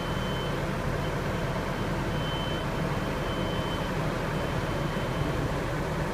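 Merlo Roto 38.16 rotating telehandler's diesel engine running steadily under hydraulic load as it works the fly jib winch and swings the suspended load, with a high beeping tone coming on and off several times.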